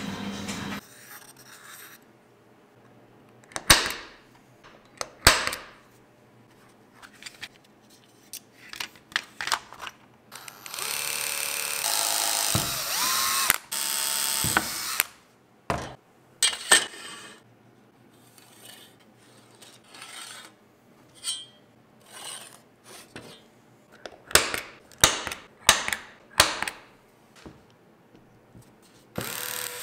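Workshop build sounds: scattered sharp knocks and clicks of tools and parts being handled, and a power tool running for about four seconds in the middle.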